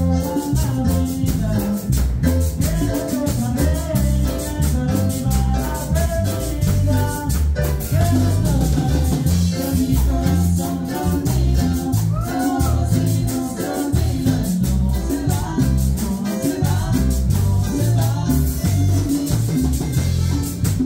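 Live band playing Latin dance music: electric guitar, bass, keyboard, drum kit and hand percussion with a shaker-like rattle, and a male singer on a microphone.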